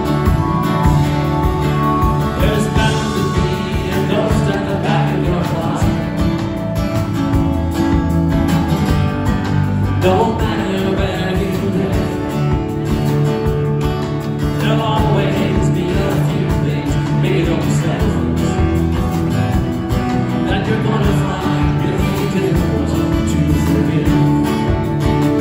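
Live band playing: strummed acoustic guitar over electric bass, drums and keyboard, steady and loud.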